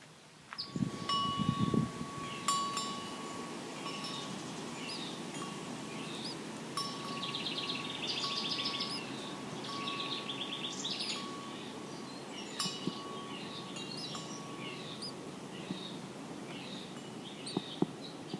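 Small birds chirping and trilling, with a chime ringing one clear note that is struck several times.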